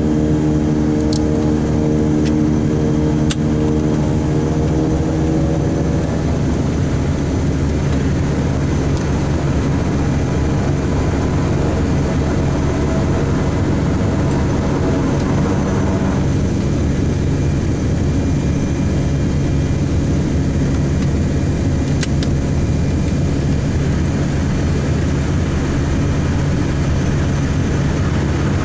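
Twin Pratt & Whitney Canada PT6A turboprop engines and propellers of a Beechcraft King Air 90 running at taxi power, heard inside the cockpit. A steady drone with a propeller hum whose pitch shifts a couple of times as the aircraft taxis.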